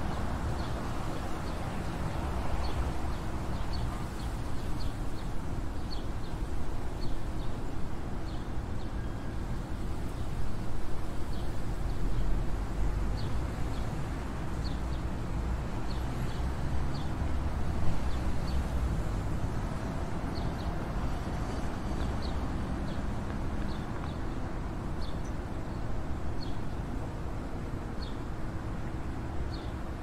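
Sparrows chirping: short, high chirps about once or twice a second over a steady low rumble.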